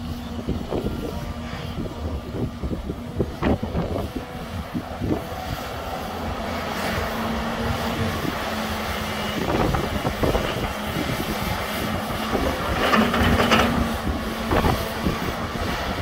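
Volvo crawler excavator's diesel engine running under working load as the hydraulic arm lifts and swings a bucket of soil, with a steady whine that rises and drops away in stretches and a few short knocks.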